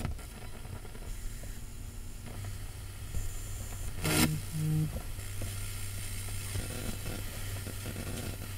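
Electrical sparking at a wall outlet: a crackling, sizzling hiss over a steady electrical hum, with a sharp zap about four seconds in.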